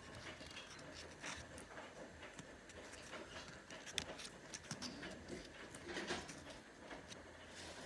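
Faint crinkling and small clicks of a crumpled, creased paper note being turned over between fingers, with one sharper tick about four seconds in.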